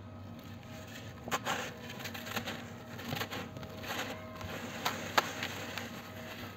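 Hands squeezing and crumbling a clump of dry, powdery clay dust in a basin: soft grainy crunching with scattered crackles, and a sharp snap about five seconds in.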